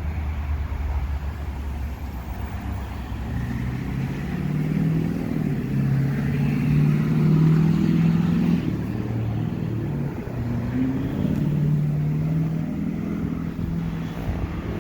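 Mercruiser 8.2 Magnum big-block V8 marine engine idling low, then revved: its pitch climbs and wavers, falls back about nine seconds in, and rises again briefly.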